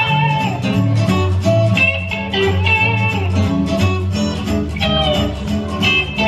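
Background music: an instrumental led by plucked acoustic guitar over a steady, bouncing bass line.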